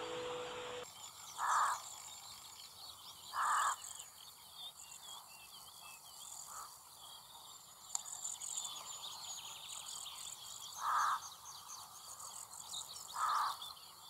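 Rook giving four short caws, two near the start and two near the end, over a background of small songbirds chirping.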